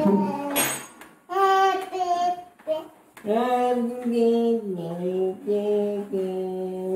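A child singing a tune in long held notes: a short phrase about a second in, then a longer phrase from about three seconds in that steps down in pitch partway through.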